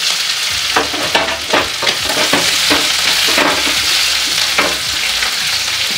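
Onion pieces sizzling in hot mustard oil in a kadhai, with a steady frying hiss, while a steel spatula stirs them, scraping and knocking against the pan about two to three times a second from about a second in.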